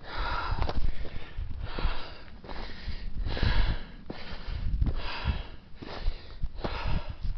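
Heavy breathing of a hiker climbing a steep slope: hard, noisy breaths about every second and a half, with low thuds underneath.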